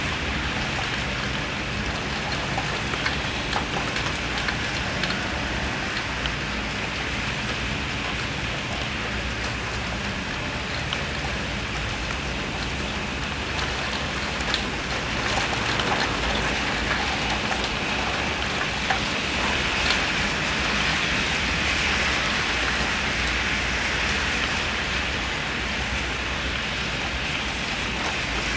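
Heavy rain pouring steadily, with scattered sharp taps of drops and drips landing close by. The downpour swells louder about halfway through and eases slightly near the end.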